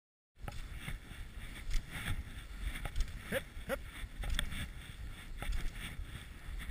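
Wind and motion noise on a chest-mounted GoPro during skijoring: a steady low rumble with scattered knocks, starting abruptly a moment in, with two short rising squeaks about three and a half seconds in.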